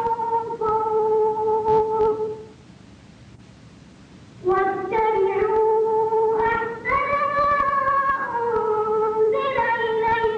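A boy's high voice reciting the Quran in a melodic tajweed chant, drawing out long held notes that slide between pitches. The recitation breaks off for about two seconds a few seconds in, then carries on.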